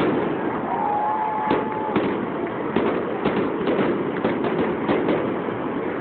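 Fireworks display: aerial shells bursting in a rapid series of booms, cracks and pops, with a dense flurry of crackling in the middle. A brief steady whistle sounds about a second in.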